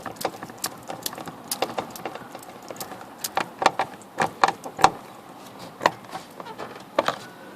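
Irregular sharp metallic clicks and taps as a screwdriver drives one of the car door handle's large mounting screws home.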